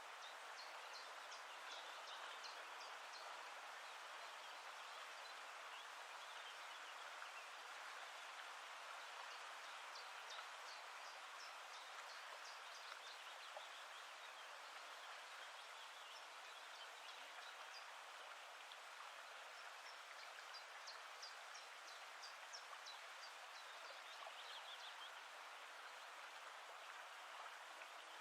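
Faint, steady rush of flowing water, with runs of short, high bird chirps near the start, about ten seconds in and about twenty seconds in.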